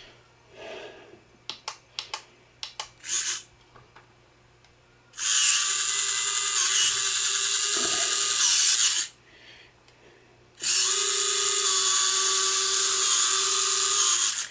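Small geared electric retract motor of a Hobby King alloy multirotor landing-gear unit whining as it drives the gear leg, in two steady runs of about four seconds each, the first starting about five seconds in. A few light clicks of handling come before the first run.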